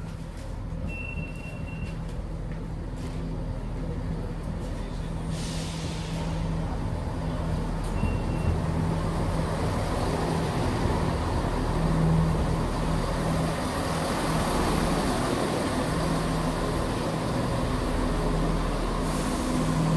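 Chiltern Railways diesel multiple unit arriving at a platform. Its engines hum steadily and grow louder as it draws alongside and slows, with a brief hiss of air near the end.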